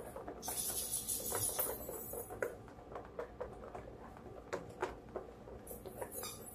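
Wire whisk beating cake batter in a plastic mixing bowl: a rapid run of soft ticks and wet patter, with a hissy scraping stretch in the first two seconds.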